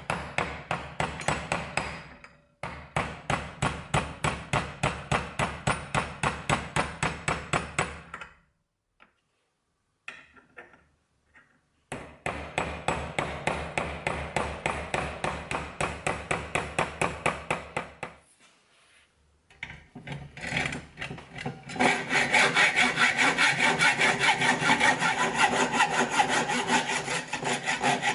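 Small hammer tapping a pin set in a brass finger-plane body clamped in a bench vise, in quick even runs of about four taps a second with two pauses. About 22 seconds in, a hacksaw starts cutting the brass in steady, louder strokes.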